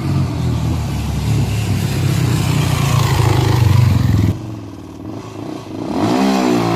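Single-cylinder Honda Tornado four-stroke motorcycle engine, big-bored with an Athena 293 kit and a 296 cam, running hard at steady revs. About four seconds in the throttle closes and the revs drop sharply. Near the end it revs up again and holds.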